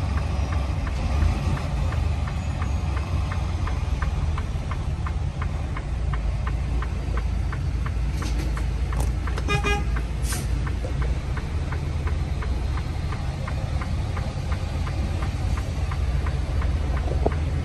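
Truck engine rumbling steadily, with a fast, even ticking throughout. About nine and a half seconds in there is a short, high toot with brief hisses around it.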